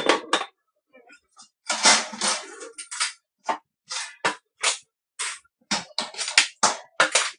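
Dishes and kitchen utensils clattering as they are handled at the counter: a quick run of sharp knocks and clinks, with a longer rattle about two seconds in.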